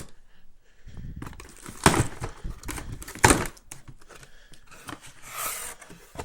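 A shipping package being torn open and its packaging handled: crinkling and rustling, with two sharp, loud rips about two and three seconds in.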